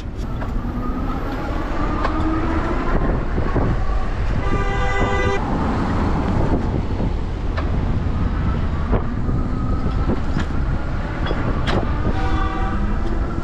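Wind and road noise from riding an electric bike through city traffic, with a vehicle horn sounding for about a second about five seconds in.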